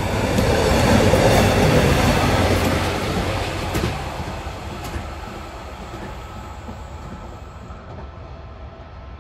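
Railway track tamping machine rolling past along the rails, loudest one to two seconds in, then fading steadily as it moves away. A couple of sharp clicks come partway through.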